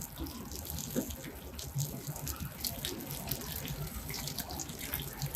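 Seafood omelette frying in hot oil, sizzling with many small, irregular crackles.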